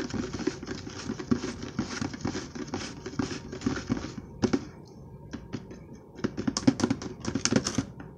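Metal spoon stirring a thick slime mixture in a small plastic tub, with quick scraping clicks against the sides. About four seconds in the stirring turns slower and sparser, as separate clicks.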